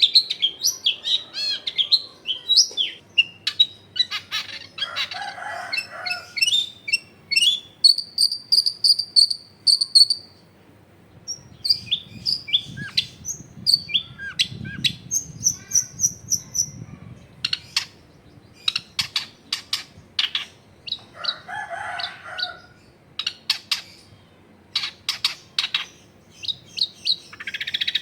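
Long-tailed shrike singing a varied, busy song: quick warbled trills, a few clear held whistles, and long runs of sharp clicking notes in the second half.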